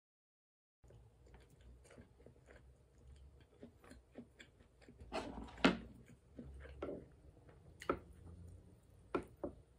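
Close-up eating sounds: chewing a crispy breaded pork cutlet, with many small clicks and a louder crunch about five seconds in. A few sharp taps of utensils against the dishes follow near the end.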